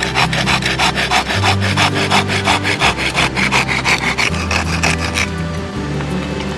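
Hand saw cutting through wood with quick, even back-and-forth strokes, about six or seven a second, stopping about five seconds in. Low background music plays underneath.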